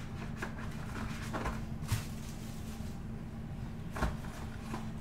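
A cardboard trading-card hobby box handled with a few light rustles and clicks, then set down on the table with a knock about four seconds in, over a steady electrical hum.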